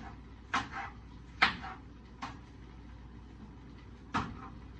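A knife chopping through watermelon onto a cutting board: a handful of separate, irregular knocks, the loudest about one and a half seconds in.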